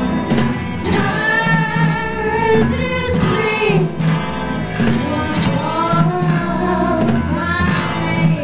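Punk rock band playing live, with singing over a steady beat.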